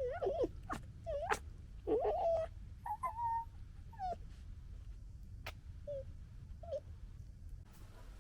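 Red fox cubs making a run of short, high whining and whimpering calls that waver up and down in pitch, bunched together in the first few seconds, then two fainter short calls later on.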